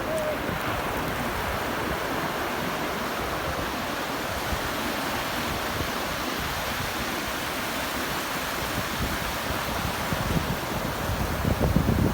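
Sea surf washing steadily onto the beach, a continuous hiss of breaking waves. Near the end, wind gusts buffet the microphone with a low rumble.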